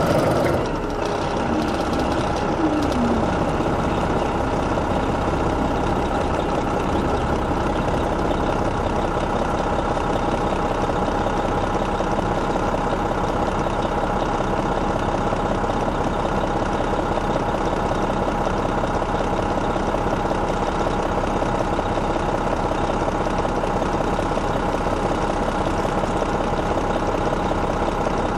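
Detroit Diesel Series 60 EGR diesel engine of an MCI D4500 commuter coach idling steadily. The sound drops a little about a second in, with a brief falling whine soon after, then settles into an even idle.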